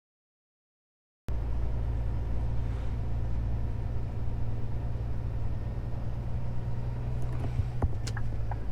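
About a second of dead silence, then a heavy diesel engine running steadily with a low drone. A few faint clicks come near the end.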